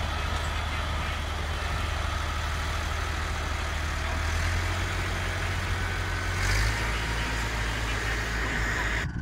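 Ford farm tractor engine running steadily under load while pulling a reversible plough through soil. Its note drops about six and a half seconds in.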